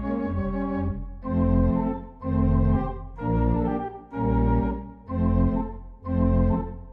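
Organ music, the score of a silent film: a held chord, then from about a second in a chord struck in short repeated blasts about once a second.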